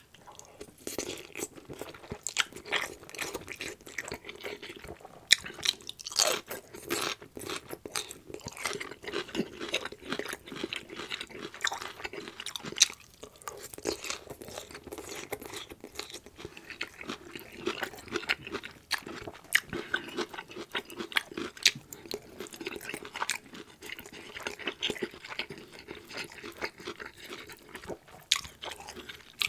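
Close-miked chewing of egg noodles in gravy and green beans: a dense run of wet mouth smacks, sharp clicks and crunchy bites.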